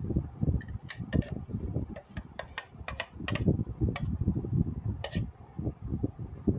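Steel mixer jar clinking and knocking against a wire-mesh strainer and steel bowl as thick mango pulp is poured out, with a steel spoon scraping in the strainer near the end. A dozen or so sharp metallic clicks over dull handling thumps.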